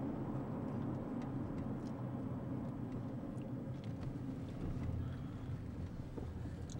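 A car's engine and road noise heard from inside the cabin while driving: a steady low hum.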